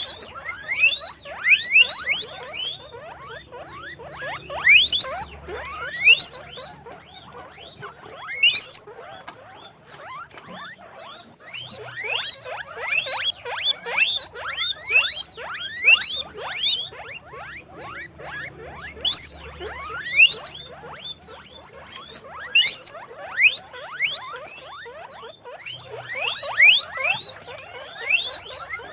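Guinea pigs squeaking: many short, high-pitched squeaks in quick runs, some overlapping, over a faint steady high whine.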